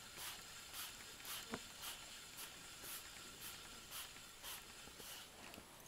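Spinning reel being cranked to retrieve a lure: a soft, even swish about twice a second with each turn of the handle, and one sharp click about a second and a half in.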